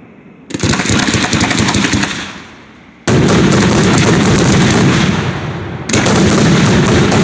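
Fireworks display: rapid barrages of aerial shells going off in quick cracks and booms. There are three volleys, each starting suddenly, about half a second, three seconds and six seconds in.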